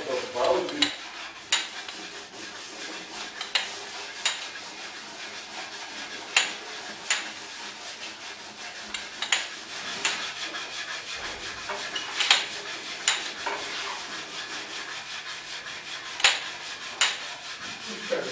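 Hand scraping or rasping on wood, a steady rough rubbing broken by sharp knocks every few seconds, often two in quick succession.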